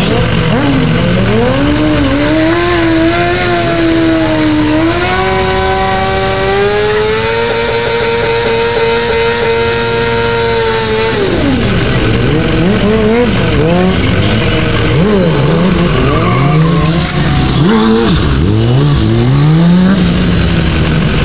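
Sport motorcycle engine revving up and held at high revs for several seconds during a rear-tyre burnout, with the hiss and squeal of the spinning tyre. About eleven seconds in the revs drop sharply, then rise and fall in short blips.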